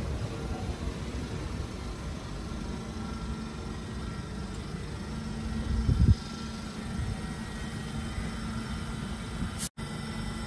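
Class 387 electric multiple unit standing at the platform, its equipment giving a steady low hum over a rumble. About six seconds in there is a short, louder low swell, and near the end the sound cuts out for a moment.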